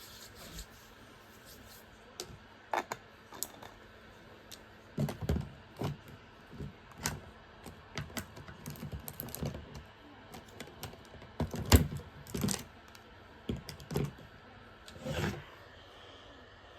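Irregular clicks, taps and knocks of small objects being handled and set down, with a busier run of them in the middle and a few sharper knocks.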